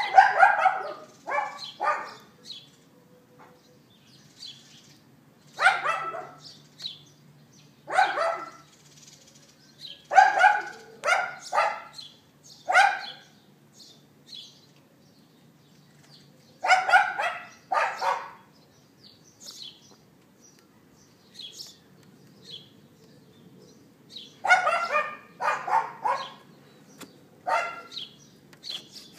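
Dog yapping: sharp barks in clusters of two to four, with pauses of a few seconds between the clusters. Birds chirp faintly in the gaps.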